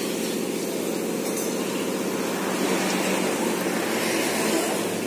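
A large diesel bus engine idling steadily, with a fast, even low chugging.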